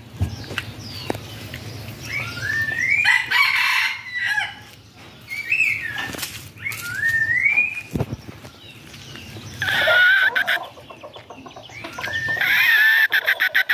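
Rooster crowing several times, each crow a shrill rising call with a loud one about ten seconds in. Near the end a crow comes with a quick run of wing flaps.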